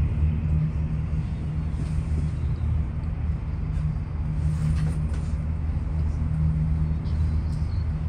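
Steady low vehicle rumble with a droning hum and a few faint clicks.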